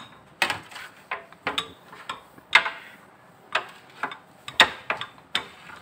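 Wooden rolling pin working a thin sheet of paratha dough on a rolling board, with a sharp wooden knock or clack every half second to a second as it is pushed back and forth.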